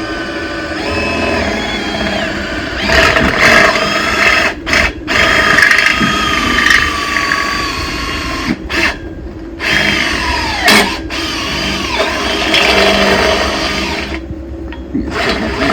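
Power drill running a step bit into a steel gate post, starting slowly, with a whine that wavers in pitch as it cuts. The drill stops and restarts several times.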